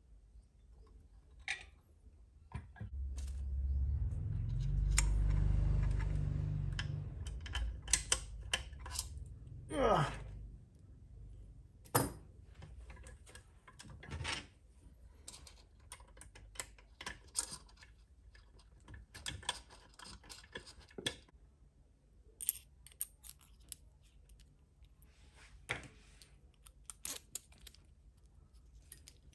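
Small parts and tools being handled on a workbench, giving scattered sharp clicks and taps. A low rumble of handling noise swells for several seconds about three seconds in, and ends with a short falling sweep about ten seconds in.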